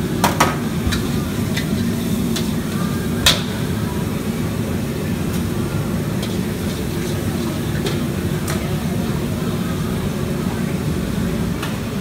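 A metal ladle clangs and scrapes against a wok during stir-frying over high-pressure gas wok burners, which keep up a steady low rush. The loudest ladle strikes come twice just after the start and once a little after three seconds in, with lighter clinks later.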